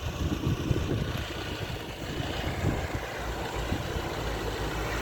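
Nissan Terrano WD21's engine running, with an uneven low rumble.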